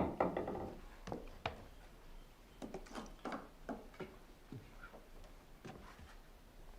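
Faint, irregular clicks and light knocks, a few each second, with no steady rhythm.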